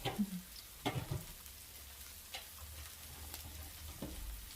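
Food sizzling on a tabletop gourmet grill plate, a steady hiss, with a few sharp clicks and taps over it.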